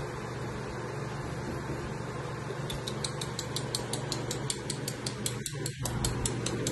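Rapid, even mechanical ticking, about five ticks a second, starting about two and a half seconds in over a steady low hum.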